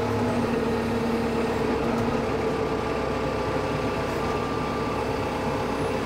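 Kubota M4 tractor's diesel engine running steadily as the front loader hydraulics raise and tilt the bucket, with a steady whine over the engine's rumble.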